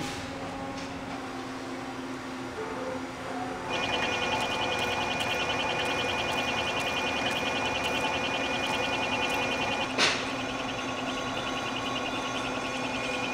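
Metal lathe running, then about four seconds in a twist drill in the tailstock starts cutting into the spinning shock-extension part, giving a steady high squeal that pulses rapidly. The drill is boring the end so it can be threaded female. A single sharp knock comes about ten seconds in.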